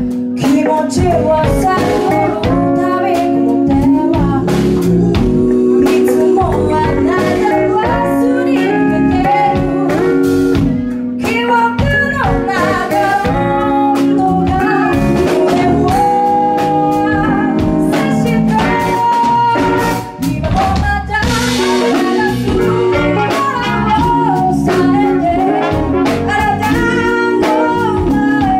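Live band playing a song: several singers over electric keyboard, electric bass, guitar and drum kit, with a steady beat.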